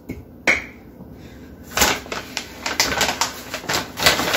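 Measuring flour into a stainless steel mixing bowl: a single click about half a second in, then from about two seconds in a run of quick taps and scrapes as a measuring cup scoops from a paper flour bag and knocks against the bowl.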